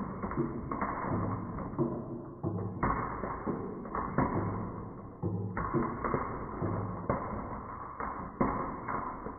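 Marbles rolling and clattering down a toy marble run, with a rapid string of knocks and clicks over a steady rolling rumble.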